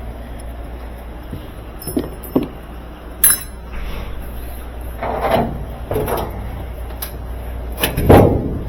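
Clinks and knocks of hard parts and tools being handled, over a steady low hum. There are a few sharp clinks about two to three seconds in, then heavier knocks, the loudest near the end.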